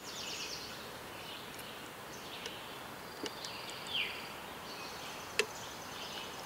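Faint outdoor ambience with small birds chirping: short falling chirps and a quick trill, over a steady hiss. A couple of sharp clicks, the loudest about five and a half seconds in.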